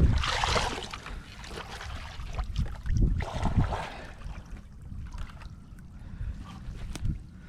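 Irregular rustling and scraping of gear being handled, over a steady low rumble of wind on the microphone.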